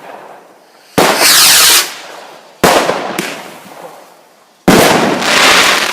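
Fireworks going off: three loud blasts about two seconds apart, each fading away, the first and last drawn out for nearly a second before dying down.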